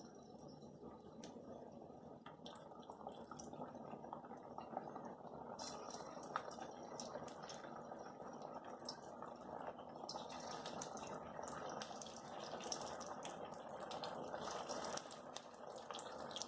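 Sabudana (tapioca pearl) vadas deep-frying in hot oil: a faint, steady sizzle with dense crackling pops, which get busier about six seconds in.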